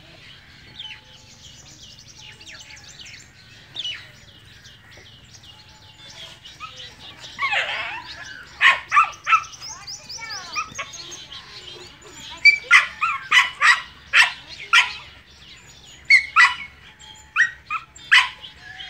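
A dog barking, in quick runs of short, sharp barks from about halfway through, with birds chirping in the first half.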